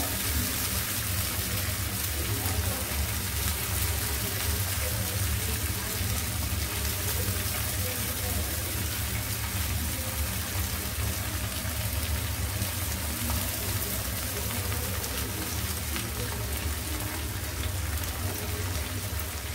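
Wok of sauce frying on a gas stove as boiled noodles are dropped into it: a steady hiss over a steady low hum.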